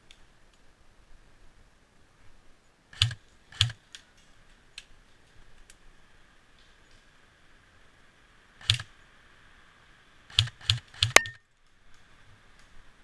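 Airsoft guns firing scattered single shots as sharp snapping clicks: two about three seconds in, one near nine seconds, then a quick run of four shots just after ten seconds.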